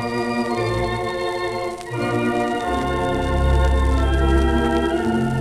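Standaart 3/10 theatre organ playing held chords in a medley of old popular songs, with deep bass pedal notes coming in about halfway. It is a 1933 78 rpm record, with a few faint surface clicks.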